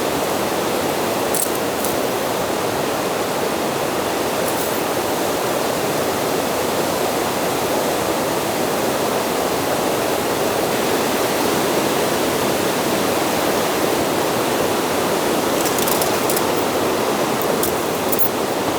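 Steady rushing noise with a few faint, light clicks.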